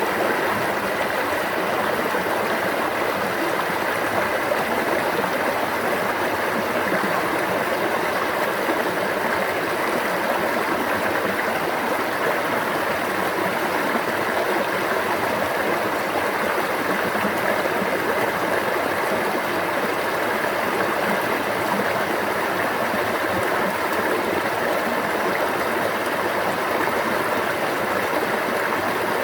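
A stream of water running and babbling steadily, with no change in level.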